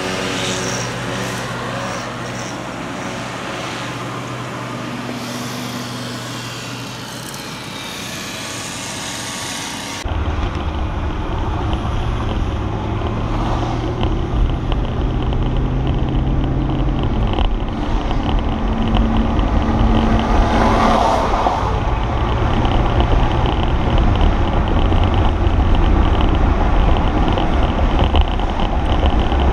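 1997 Ford Thunderbird LX's 4.6 V8 running steadily at idle, heard at the tailpipe. About ten seconds in it cuts to the car under way, heard from inside the cabin: a louder, deep rumble of engine and road noise.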